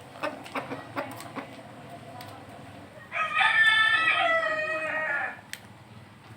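Rooster crowing once, a single call a little over two seconds long, after a few light clicks.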